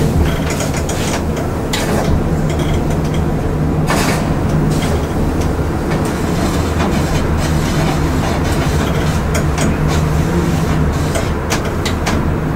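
LUTZ traction elevator car travelling down the shaft: a steady rumble with a low hum, and a few short clicks and rattles along the way.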